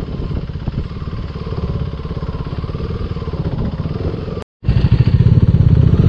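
Motorcycle engine running with a steady rapid pulse as the bike rides over a loose gravel road. The sound cuts out for a moment about four and a half seconds in and returns louder.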